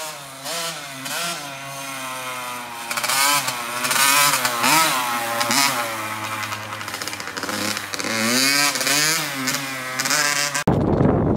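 Small dirt bike engine revving up and down repeatedly as it is ridden around, its pitch rising and falling with the throttle. Near the end it cuts off suddenly to wind rumbling on the microphone.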